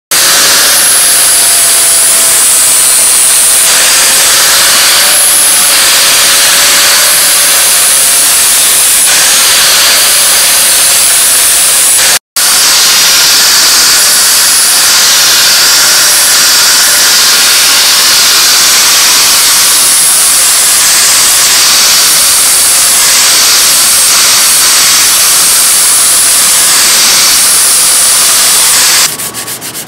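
Angle grinder with an abrasive disc grinding the steel blade of a billhook: a loud, steady grinding hiss over a wavering motor whine, cut off for an instant about twelve seconds in.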